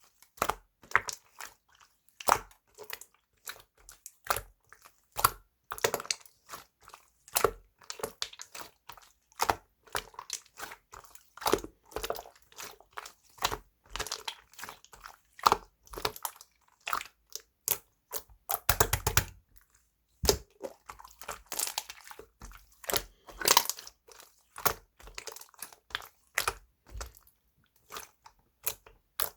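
A run of irregular sharp crunching clicks, with a quick, dense rattle of clicks about two-thirds of the way through.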